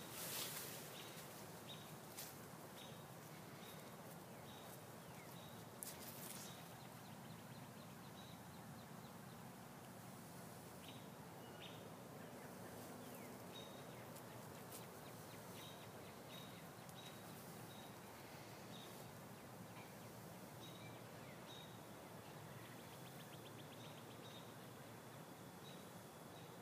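Faint evening outdoor ambience of small creatures: short high chirps repeating about every second, with a few quick ticking trills. A sharp click sounds near the start and another about six seconds in.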